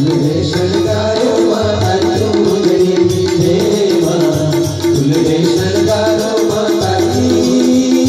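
Live Gujarati devotional folk song: a male voice singing over a harmonium's sustained chords and a tabla keeping a steady rhythm.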